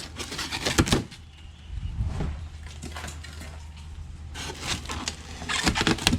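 Cardboard box and packaging being opened and handled, with crackling, rustling and light knocks in three or four bouts.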